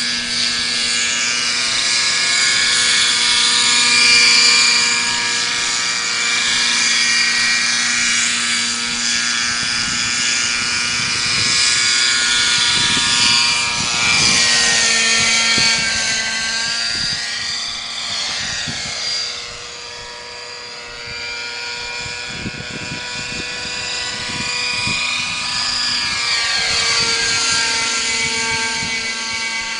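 Nitro (glow-fuel) engine of a radio-controlled helicopter in flight, a steady high engine note with rotor noise that swells and fades as the model moves about, dipping about twenty seconds in.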